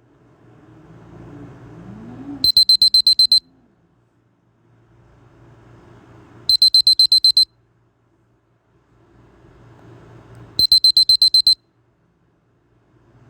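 A Nokia E5 alarm-style tone played through a Samsung Galaxy A51 phone's speaker. It sounds three bursts of rapid high beeps, each burst about a second long, repeating every four seconds, with a faint rising hiss swelling up before each burst.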